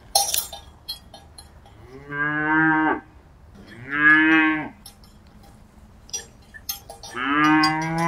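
Cows mooing: three long moos, the last running on to the end, with scattered short metallic clinks between them.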